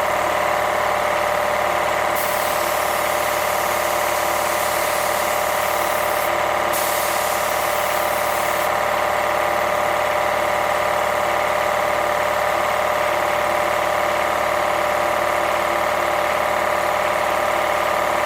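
Air compressor running steadily, with a spray gun hissing twice as it sprays primer: a long burst starting about two seconds in and a shorter one about seven seconds in.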